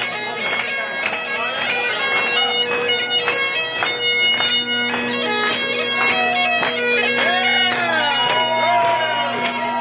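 Great Highland bagpipe playing a tune over its steady drones, the chanter melody moving quickly from note to note above the continuous drone hum.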